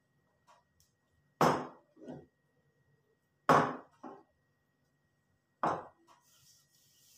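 Three sharp knocks about two seconds apart, each followed by a softer second knock.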